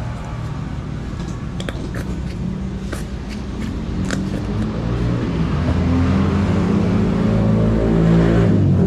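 A motor vehicle's engine running close by, rising in pitch and getting louder over the last few seconds as it revs up. A few light clinks sound in the first half.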